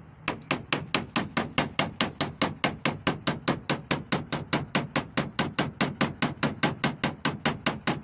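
Small claw hammer tapping lightly and rapidly on a new universal-joint bearing cap, about five even metal-on-metal taps a second, driving the cap little by little into the driveshaft yoke until it seats.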